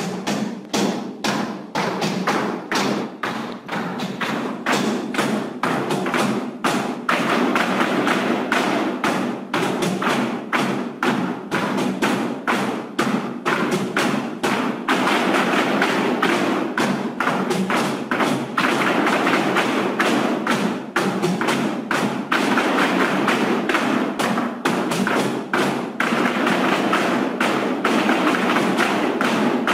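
Flamenco footwork: several dancers stamping and tapping their heeled shoes in rhythm on a wooden floor, over flamenco music.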